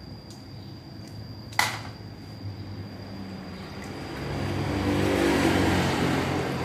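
A single sharp click about a second and a half in, then a motor vehicle passing: its engine sound swells from about four seconds in and fades near the end.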